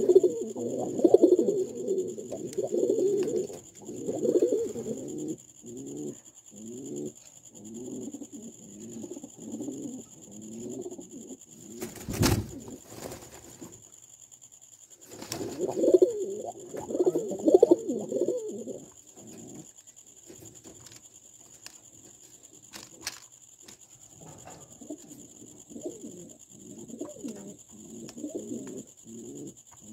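White domestic pigeon cooing in repeated low, rolling bouts, loudest near the start and again around the middle, with a single sharp knock about twelve seconds in. A faint steady high whine runs underneath.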